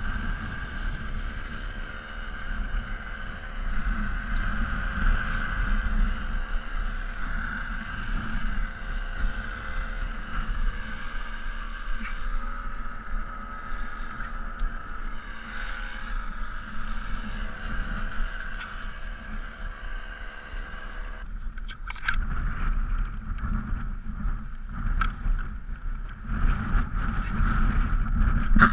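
A steady mechanical drone over low rumble. Several sharp clicks and knocks come in the last seven seconds, as gear is handled at the top of a wooden utility pole.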